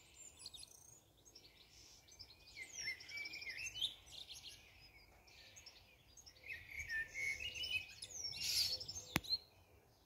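A songbird singing in two long phrases of quick chirps and trills, over a faint low rumble. A single sharp click comes near the end.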